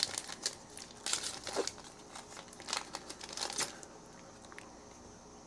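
Crinkling and tearing of a trading-card pack wrapper being opened and handled, busy for nearly four seconds and then stopping.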